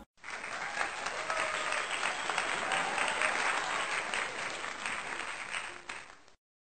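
Crowd applauding, a dense patter of many hands clapping that starts suddenly and cuts off abruptly near the end.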